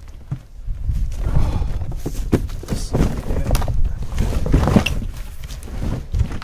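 A large cardboard box being handled and tipped over to free a lawnmower inside: cardboard scraping and rustling with several dull thumps.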